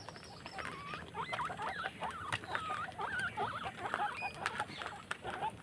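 Guinea pigs squeaking: many overlapping calls gliding up and down in pitch, starting about a second in, over scattered light clicks.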